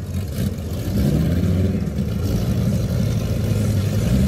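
Drag-racing cars' engines running at the start line, a Corvette V8 and a turbocharged Opala six-cylinder, as a deep rumble that grows louder about a second in.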